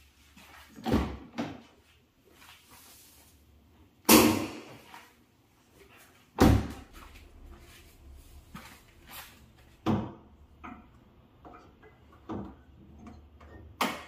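About seven separate knocks and bangs a few seconds apart, the loudest two about four and six and a half seconds in, with quieter handling noises between them.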